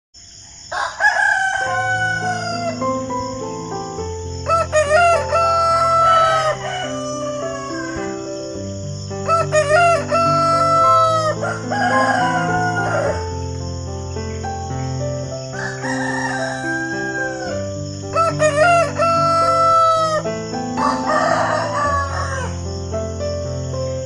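Rooster crowing cock-a-doodle-doo again and again, about eight crows in a row, over a backing of slow sustained chords.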